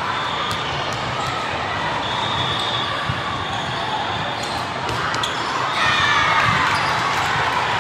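Volleyball rally in a large, echoing hall: a few sharp slaps of the ball being hit, over steady murmur and calls from players and spectators. The din grows louder about six seconds in.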